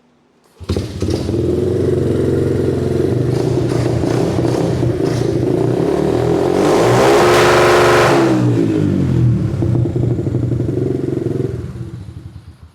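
Small four-stroke dirt bike engine with a 70cc top-end kit starting abruptly and idling, revved once up and back down in the middle, then shut off and running down to a stop near the end.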